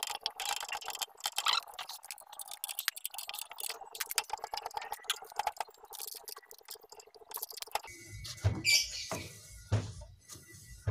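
Motorcycle front wheel spun by hand, its brake disc turning through the caliper with a fast run of light ticking and brushing. About eight seconds in the spinning stops and a few handling knocks follow.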